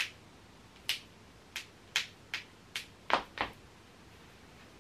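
Knuckles and finger joints cracking: about eight sharp pops at uneven intervals, the loudest pair about three seconds in.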